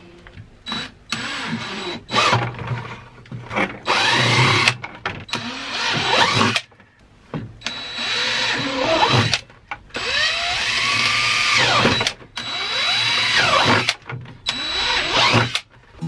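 Power drill boring holes through a plastic five-gallon bucket. It runs in about nine short bursts, speeding up and slowing down in pitch, with the bit chewing through the plastic.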